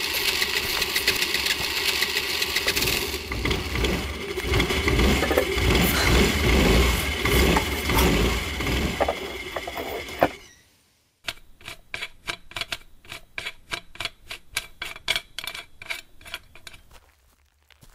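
A motor scooter's small engine running just after being repaired, when before it would not start: a dense, steady running sound with a low rumble. It cuts off sharply about ten seconds in and gives way to a quieter, rapid mechanical ticking, about five ticks a second.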